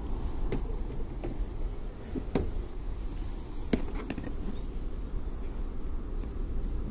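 Boom sprayer running with its engine and pump going, a steady low drone while the tank mix is agitated to a foam, with several short clicks and knocks from handling, the sharpest a little past the middle.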